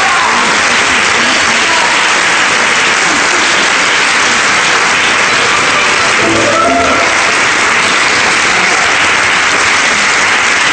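Audience applauding steadily, with a voice briefly heard about two-thirds of the way through.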